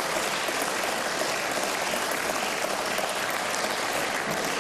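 Applause from parliamentary deputies in the chamber, a steady dense clapping that holds at an even level.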